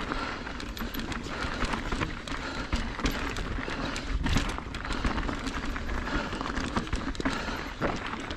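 Mountain bike rolling over a rocky, gravelly trail: tyres crunching and the bike rattling in irregular clicks, with wind rumbling on the microphone.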